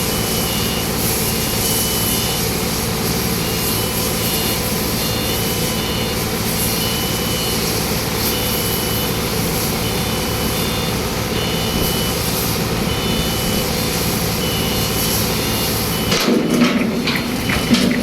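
A heavy vehicle's engine running steadily while a reversing alarm beeps repeatedly. About sixteen seconds in the engine noise drops away and sharp metal knocks and clanks follow.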